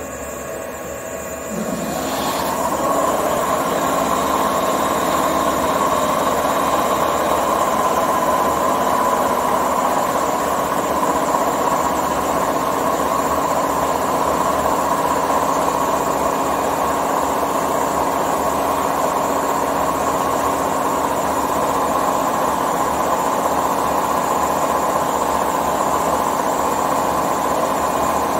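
The MH113-C2000 electric air compressor under a JR 485 series train starts up about two seconds in, its whine rising as it spins up, then runs steadily and loudly, pumping air.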